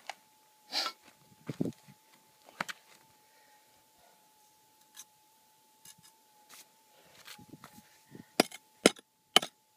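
Prospecting pick striking rock and gravel while digging a hole: scattered knocks and scrapes, then a quick run of sharp hits near the end. A faint steady hum runs underneath.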